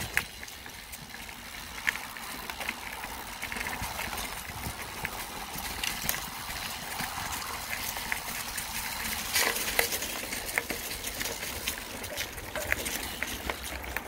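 Mountain bike ridden over rough ground, picked up by a handlebar-mounted phone: a steady rush of tyre noise with irregular clicks and rattles from the bike, a louder cluster of knocks about nine and a half seconds in.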